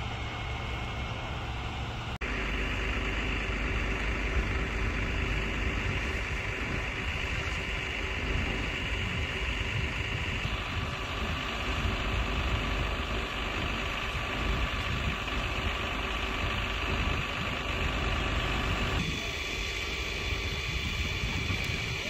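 Fire trucks' diesel engines idling, a steady low rumble with a faint hum. The background changes abruptly three times: about two seconds in, about halfway through, and near the end.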